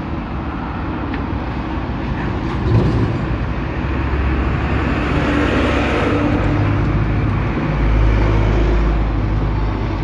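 A motor vehicle's engine running close by. It grows louder about four seconds in and stays strong until near the end.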